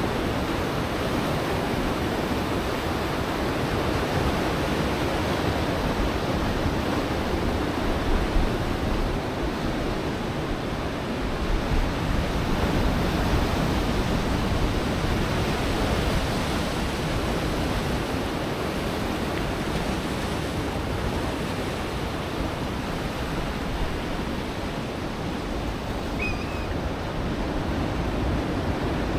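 Steady wash of Pacific Ocean surf along a rocky shoreline, with some wind on the microphone.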